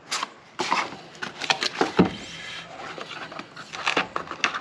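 Cardboard product box being unpacked: scraping and rustling of card, with a quick run of sharp taps and knocks as the sleeve comes off and the inner box is opened. A heavier knock about two seconds in.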